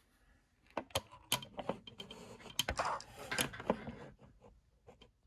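Irregular clicks and knocks of a plastic laptop case being handled, starting about a second in and dying away before the end.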